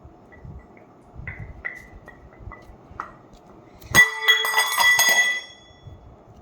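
A few light clinks of kitchenware, then about four seconds in a loud clatter of a metal bowl that rings for about a second before fading.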